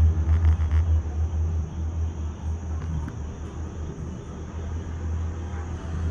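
Low rumble inside a moving Disney Skyliner gondola cabin, steady and wavering slightly in strength.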